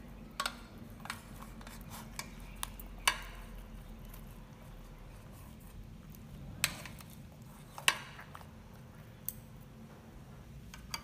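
Scattered sharp clinks and knocks against a stainless steel pot, about ten at uneven intervals with a brief ring after each, as a raw chicken is pushed and settled inside it.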